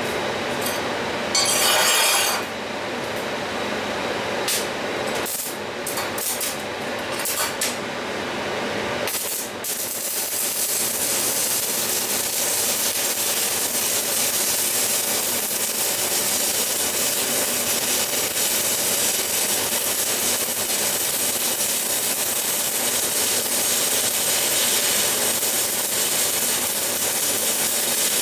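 Stick (MMA) welding arc from a Weldkar 1630 inverter welder with a thick electrode: a few short bursts as the electrode is struck and the arc catches and breaks, then from about nine seconds in a steady hiss as the arc burns continuously along the plate.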